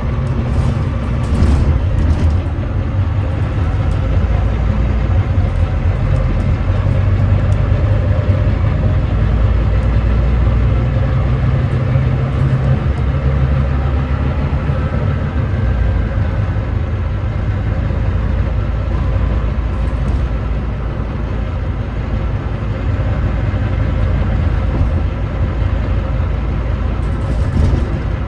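Volvo D9B 9.3-litre diesel engine of a Volvo B9TL double-decker bus running, heard from on board as a loud, steady low rumble whose note changes about halfway through. The engine is described as misfiring.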